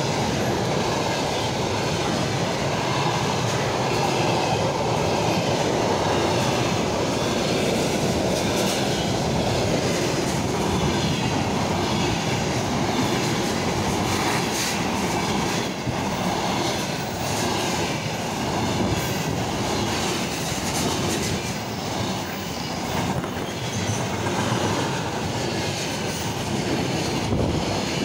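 A container train of loaded flat wagons rolling past at speed, close by. Its steel wheels make a steady, loud rumble on the rails, with scattered clicks and knocks as they pass over the rail joints.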